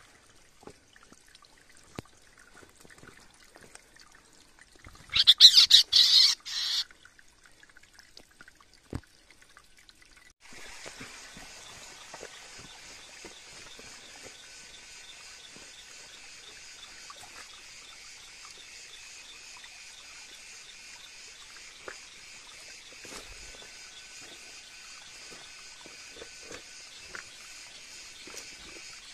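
A short burst of loud bird calls about five seconds in, then, from about ten seconds, a steady insect chorus that keeps on droning.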